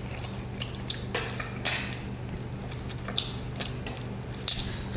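A person eating grilled chicken by hand: scattered wet clicks and smacks of chewing and tearing meat, over a steady low hum.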